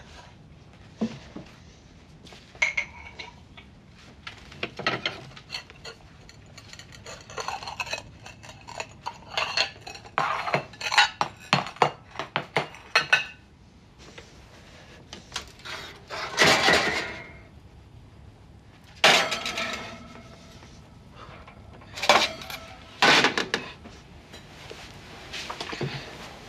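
Kitchen clatter of dishes and cutlery: a run of sharp clinks and knocks, then a few longer strokes about a second each, as food is prepared.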